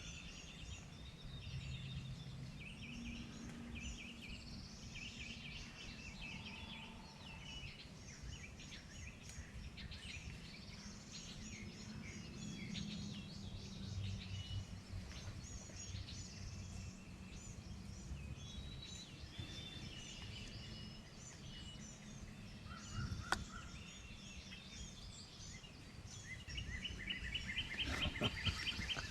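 Songbirds chirping and trilling in spring woods, several calling over one another, over a low rumble. A sharp click about 23 seconds in, and a fast, dense trill near the end.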